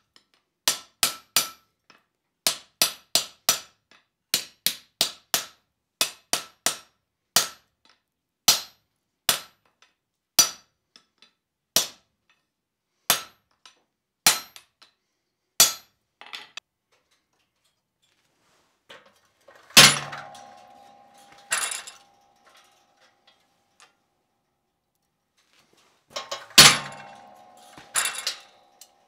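Hand hammer driving a punch into a glowing steel block on the anvil: quick runs of three or four blows, then single blows about a second apart. Later come two loud metal clangs that ring on.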